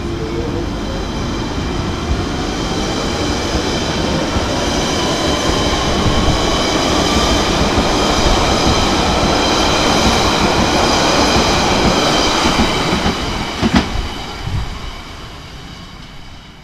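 London Underground 1992 Tube Stock train accelerating out of the platform: the traction motors' electric whine climbs steadily in pitch over the wheel and track rumble. It grows louder as the cars pass, gives a sharp knock about 14 seconds in, then fades away as the last car clears the platform.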